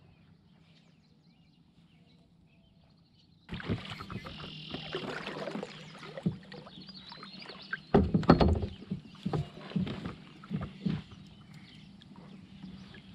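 Kayak paddle strokes: the blades splashing and dripping in calm water, with short knocks and clatter. They start suddenly about three seconds in, are loudest past the middle, and ease off near the end.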